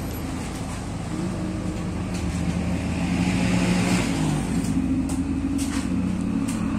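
A 2008 Toyota Yaris's engine running at low speed as the car is manoeuvred, with its note dipping briefly about four seconds in. A few light clicks come in the second half.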